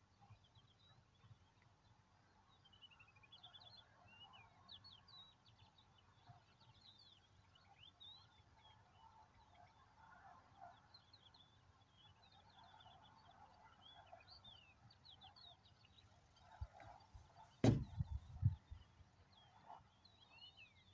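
Faint, continuous chirping of small birds: many short, high chirps and calls. About three-quarters of the way through comes a single sharp knock, followed by a few low thumps.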